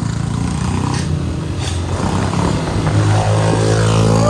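Royal Enfield Meteor 350's single-cylinder engine, fitted with a modified exhaust, running loud while the bike is ridden. The revs climb from about three seconds in as it accelerates.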